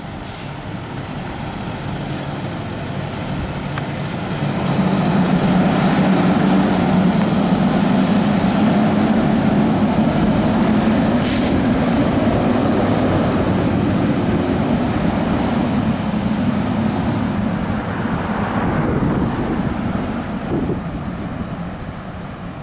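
Fire engine's diesel engine running as the truck pulls out and drives away without a siren, growing louder a few seconds in and fading toward the end. A brief sharp sound stands out about eleven seconds in.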